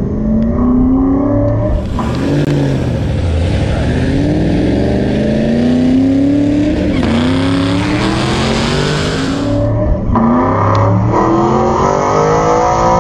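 Modified Chevrolet Camaro ZL1's supercharged V8 running alongside in repeated rising and falling revs as the cars roll, then pulling harder and louder near the end as the roll race is launched.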